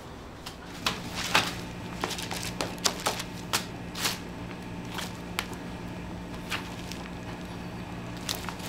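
Plastic film crinkling and crackling under gloved hands as a clear acrylic straight-edge is pressed and shifted over a plastic-wrapped slab of mugwort rice cake, with a string of irregular sharp clicks, most of them in the first six seconds, over a steady low hum.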